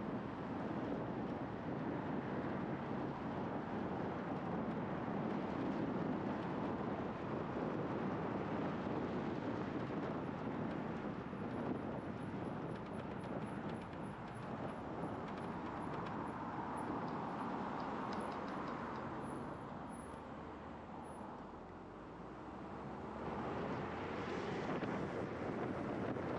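Wind rushing over the helmet and microphone with tyre and road noise from a scooter riding at around 20 mph. The sound eases briefly near the end and builds again.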